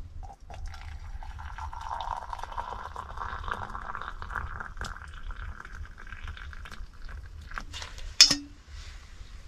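Hot water poured from an enamel kettle into a mug, the pitch of the stream rising slowly as the mug fills. One sharp clink about eight seconds in, the loudest sound.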